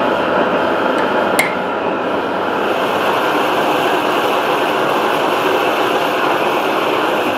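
Propane torch burning with a steady, even rush of flame as it heats a steel anvil. A single sharp click about a second and a half in.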